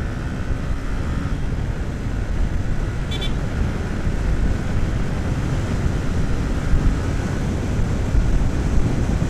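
Motorcycle running at road speed, its engine drone under heavy wind buffeting on the microphone. About three seconds in there is one short, high-pitched horn beep.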